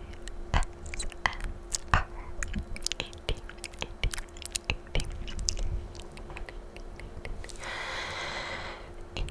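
Clicky ASMR mouth sounds: many quick, irregular wet clicks close to the microphone. A breathy inaudible whisper comes near the end.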